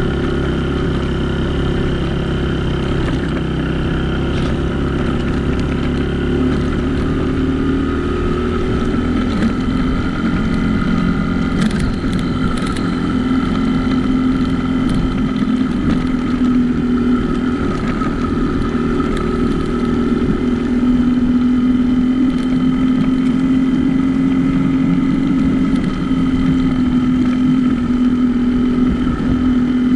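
Dirt bike engine running at a steady riding speed, its note rising a little about eight seconds in and then holding steady.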